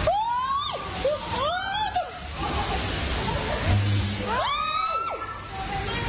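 People screaming in fright, three shrill screams that rise and fall in pitch, over the steady rush of storm wind and rain. A brief low hum comes about four seconds in.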